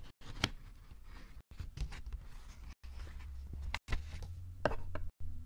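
A few soft, scattered knocks and clicks of handling close to the microphone, over a low steady hum that comes in about three seconds in.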